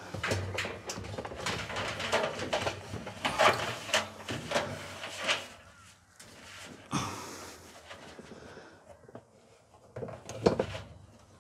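Irregular clicks, knocks and rustles of hands refitting parts inside a clothes dryer cabinet, busiest in the first five seconds, then quieter, with a few louder knocks near the end.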